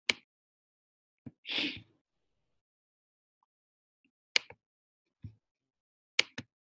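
Dead silence on a video-call line, broken by a handful of short clicks and one brief breathy puff of noise about a second and a half in.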